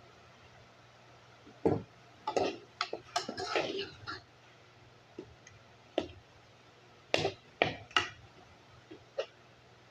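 Spoon stirring ground beef in an aluminium pot, knocking and scraping against the pot in sharp irregular clatters: a busy run of them in the first half, then single knocks every second or so.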